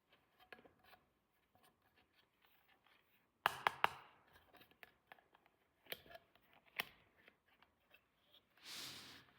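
Small plastic toy pieces and packaging handled close up: light taps and rustles, a quick run of three sharp clicks about three and a half seconds in, two single clicks a little later, and a short rustle near the end.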